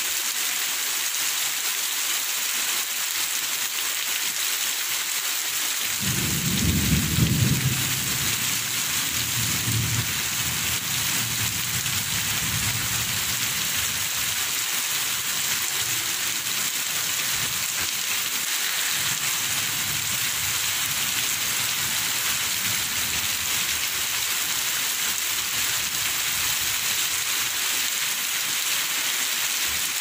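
Steady rain hissing throughout. About six seconds in a low roll of thunder starts suddenly and peaks over a couple of seconds, then rumbles away and fades over the next several seconds.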